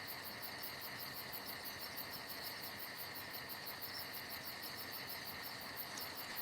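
Insects chirping steadily, a rapid even pulse of about seven chirps a second, over a faint steady hiss.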